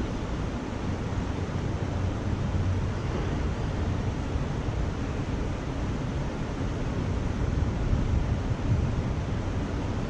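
Wind buffeting the microphone in uneven gusts over the steady rush of a shallow river riffle.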